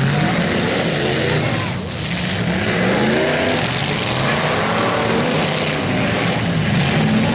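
Demolition derby car engines revving, their pitch rising and falling again and again as several cars run at once, over a loud, noisy bed of sound.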